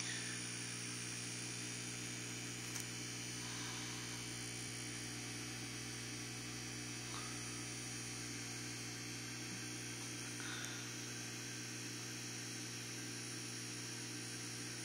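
Steady low electrical hum with a faint hiss from a running aquarium's equipment, unchanging throughout.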